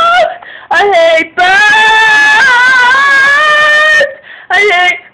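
A voice singing loudly in long, high held notes, wailed more than sung in tune: a short yelp about a second in, then one long held note of nearly three seconds, then another short yelp near the end.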